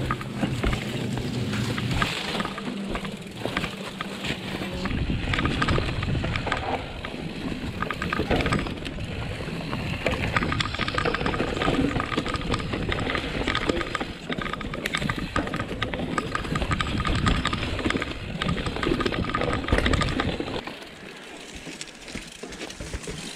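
Mountain bike riding over a rooty forest trail: a continuous rush of tyre noise on roots and dry leaves, with many knocks and rattles as the bike hits bumps. It quietens briefly near the end.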